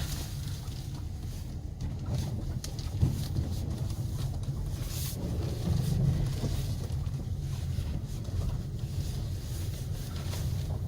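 A car running with a steady low rumble and a few faint ticks, no clear squeal standing out. The car is being checked for a squeak that comes only when steering to the right.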